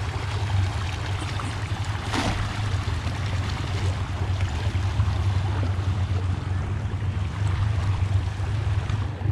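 Shallow rocky stream rushing over small rapids, with a steady low rumble under it; about two seconds in, a brief splash as the thrown cast net lands in the water.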